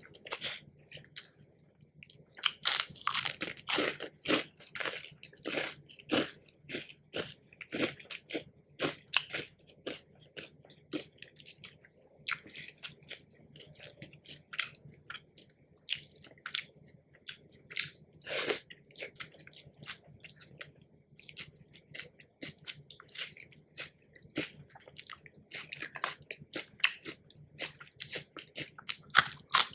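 Close-miked eating: crisp food bitten and crunched with chewing, a run of sharp irregular crackles that comes in clusters, loudest a few seconds in.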